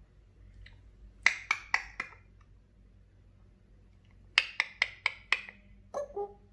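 African grey parrot making sharp clicking sounds: four quick clicks, a pause, then a run of six, followed near the end by the start of a short call.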